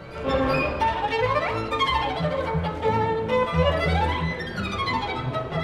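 Classical violin music with low string or bass accompaniment, played back over a high-end hi-fi loudspeaker system, with the violin's notes sliding up and down.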